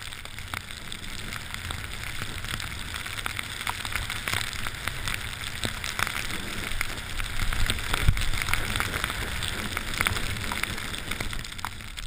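Skis hissing through deep powder snow, with many small ticks of snow spray striking the camera and wind rumbling on the microphone; loudest about eight seconds in.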